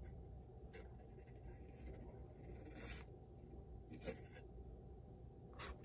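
Quiet room tone with four faint, brief handling noises from a smartphone being held and moved in the hands.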